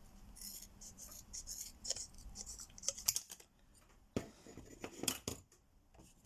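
Scissors cutting a thin plastic sheet: a quick run of short snipping, scraping strokes, then a few sharper clicks after about four seconds.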